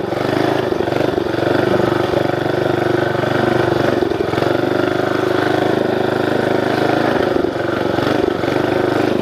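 The 11 hp Tecumseh single-cylinder engine of a mini bike running steadily at high revs under load while riding through a CVT, easing off briefly a couple of times.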